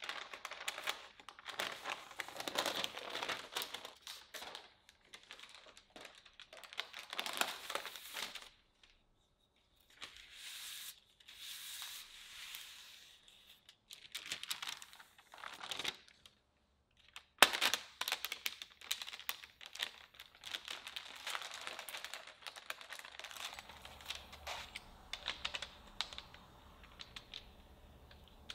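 Parchment paper rustling and crinkling in bursts as it is peeled off and laid back over sheets of rolled-out cookie dough. One sharp knock a little past halfway is the loudest sound.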